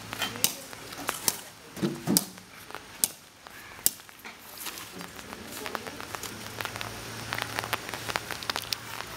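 Irregular sharp clicks and knocks over a steady low hum, with a short voice about two seconds in.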